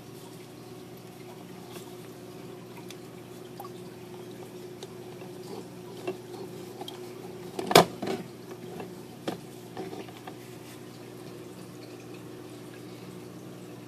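Water dripping and trickling through the chambers of a plumbed nano reef aquarium, over a steady low hum. A sharp knock about eight seconds in is the loudest sound, with a few smaller knocks around it.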